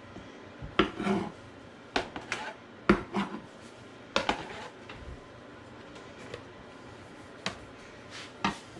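Knife cutting tomatoes on a cutting board: irregular sharp knocks of the blade against the board, with light scraping between strokes and a lull in the middle.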